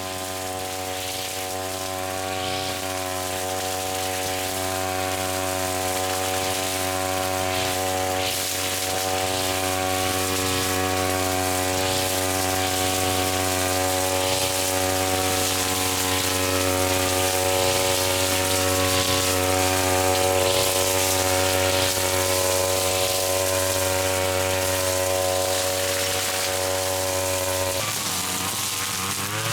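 Small engine of a grass cutter running steadily at high throttle, with a brief hiss about every second and a half. Near the end the engine note drops and wavers.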